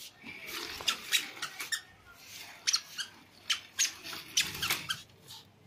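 Toddler moving in a wheeled baby walker on a concrete floor: a run of short, irregular high squeaks and clicks, with a brief low rumble about four and a half seconds in.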